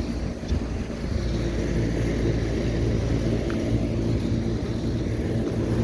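Steady low machinery rumble with a few constant low hums, with wind noise on the microphone.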